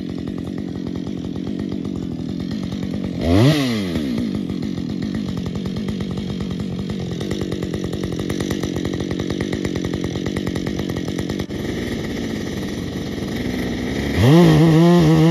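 Husqvarna two-stroke chainsaw idling with an even, rapid pulse. About three seconds in it is blipped once, its pitch rising and falling quickly. Near the end it is revved up to a steady high-speed running note.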